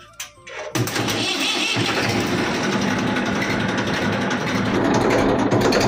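Tractor diesel engine starting up about a second in, then running steadily.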